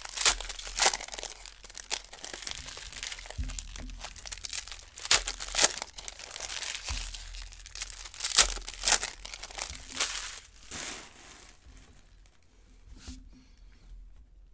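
Foil trading-card pack wrappers being torn open and crinkled by hand, in irregular crackling bursts that die down about twelve seconds in.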